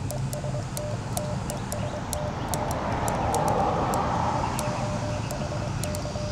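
Transceiver's Morse code sidetone, a steady tone keyed in dots and dashes, sending "TEST" and a call sign as a 5-watt CW beacon test for reverse beacon skimmers. The keying breaks off around the middle, where a broad rushing noise swells and fades, and resumes near the end with light clicks throughout.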